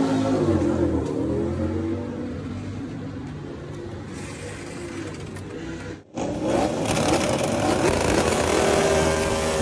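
MotoGP racing motorcycle engines. In the first couple of seconds one engine's pitch swings down and back up, then it fades. After a sudden break about six seconds in, another bike's engine runs with its pitch climbing and then holding steady.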